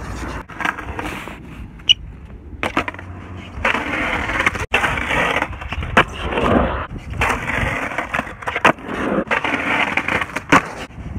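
Skateboard wheels rolling on a concrete skatepark surface, broken by repeated sharp clacks of the board popping and landing.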